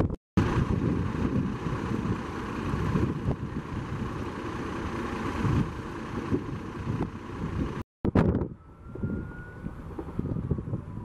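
Fire engine running close by, with wind buffeting the microphone; the sound drops out briefly twice at edits. In the last few seconds it is quieter, and a faint siren-like tone rises and then slowly falls.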